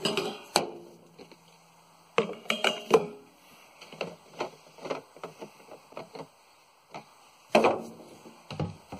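Clunks and clicks from handling a fuel jug: scattered knocks, a run of light clicks in the middle, and a heavier knock near the end.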